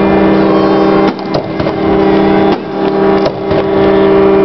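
Loud music of sustained chords that change every second or so, with a few sharp cracks about a second in.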